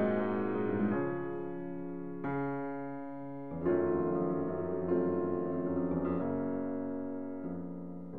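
Background piano music: slow chords struck about every second and a half, each left to fade.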